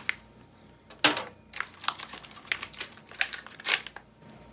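Small metal screws for the chair's armrests clicking and clattering as they are taken out of their packaging and set down. One sharp click comes about a second in, followed by a loose string of lighter clicks.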